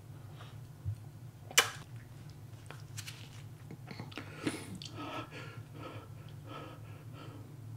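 Close-miked chewing of natto, sticky fermented soybeans: soft, wet mouth sounds in short runs, with one sharp click about one and a half seconds in.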